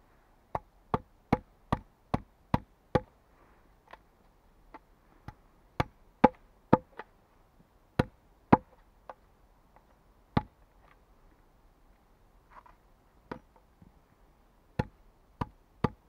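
Small axe chopping into a log to cut out a dovetail notch: a quick run of about seven blows, then slower single blows, a pause, and three more near the end.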